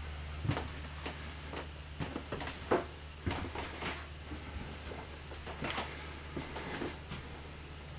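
Footsteps on a travel trailer's floor and camera handling: irregular light knocks and clicks over a steady low hum.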